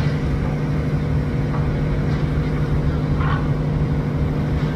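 Steady low hum of a running engine, unchanging in pitch, with faint voices in the background about three seconds in.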